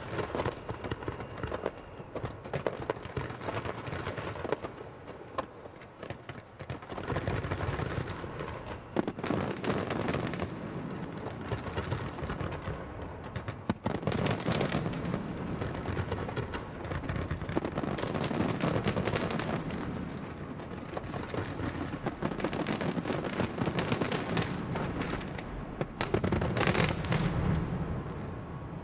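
Big fireworks display: dense, continuous bangs and crackling that swell into louder barrages every few seconds.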